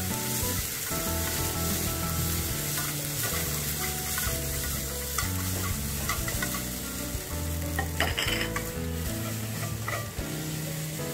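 Marinated pork strips sizzling in hot oil in a frying pan as they are stirred and pulled apart with wooden chopsticks, par-cooking the meat. A brief louder clatter comes about eight seconds in.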